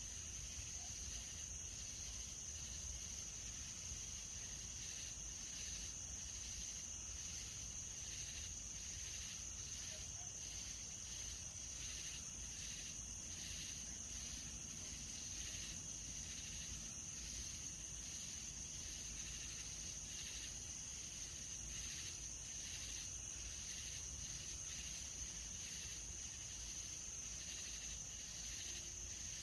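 Nighttime insect chorus: a continuous high-pitched trill, with a second insect's pulsed chirping repeating steadily a little lower in pitch.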